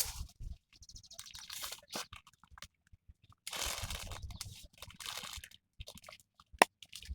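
Guava leaves and twigs rustling and crackling as leaves are plucked off the tree by hand, in irregular bursts, with one sharp snap near the end.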